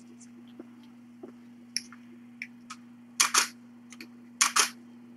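Camera shutter firing twice, each shot a quick double click, about three seconds in and again a second later, with a few fainter clicks scattered around them. A steady electrical hum runs underneath.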